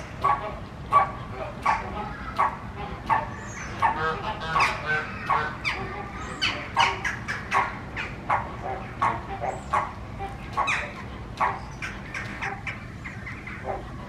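A flock of American flamingos honking: many short calls, irregular and overlapping at about two a second, thinning out near the end.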